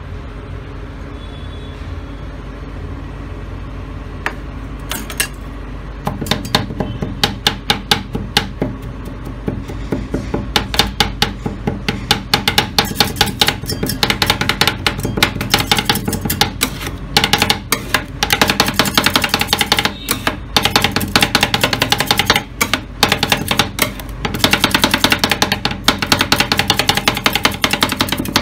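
Steel spatulas rapidly chopping strawberries into ice cream base on a steel cold plate: a fast metallic clatter of many strikes a second. It starts about six seconds in, over a steady hum.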